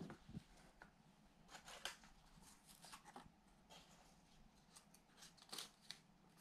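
Faint crinkling and rustling of origami paper handled and folded by hand, a scatter of short crackles over a quiet room.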